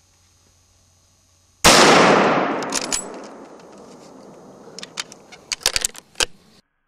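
A single hunting rifle shot, a sudden loud crack that echoes and rolls away over about two seconds. A few short sharp clicks follow near the end.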